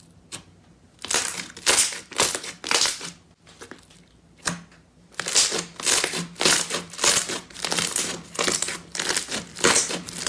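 Crunchy slime being squeezed and pressed, giving crisp crackling crunches: a few early on, then a steady series of about two a second through the second half.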